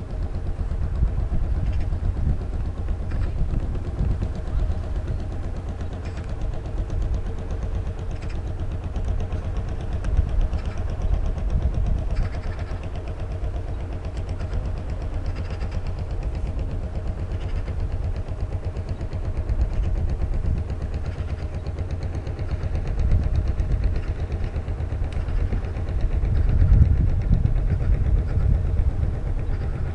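Small fishing boat's inboard engine running steadily at low speed, heard across the water as a low, even drone. It swells a little louder near the end.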